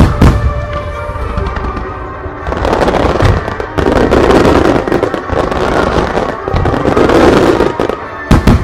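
Aerial fireworks shells bursting: sharp, loud bangs at the start and again near the end, with a long stretch of dense crackling and rumbling between them. Background music plays underneath.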